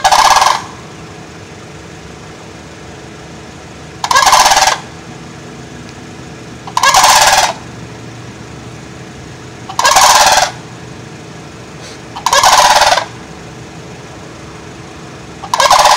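Sandhill cranes calling loudly: six separate calls, each under a second long, a few seconds apart, over a steady low background hum.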